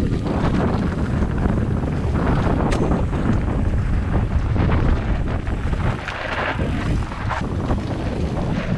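Wind buffeting the microphone of an enduro mountain bike rider on a descent, with the tyres and bike clattering over a rough, rocky trail.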